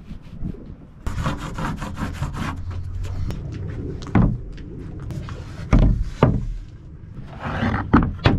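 Wooden boards rubbing and sliding across a plywood benchtop, then set down with a few sharp knocks of wood on wood.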